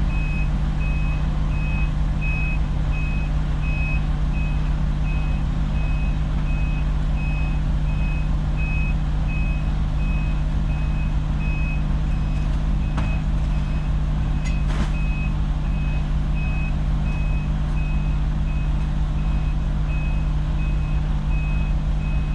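Heavy diesel truck engine running steadily at idle, under a backup alarm beeping evenly about once a second.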